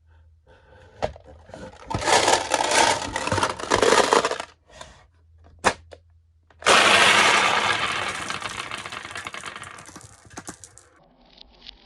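Marbles rolling and clattering down a toy marble-run slope. There are a few separate clicks, then a dense run of rattling about two seconds in, and a loud sudden clatter about two-thirds of the way through that slowly dies away.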